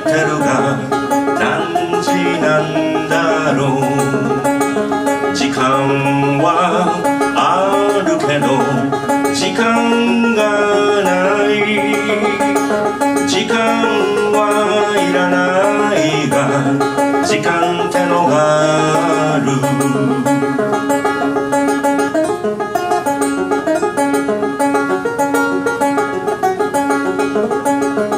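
Banjo played live, picked notes running on steadily as accompaniment, with a man singing over it in places.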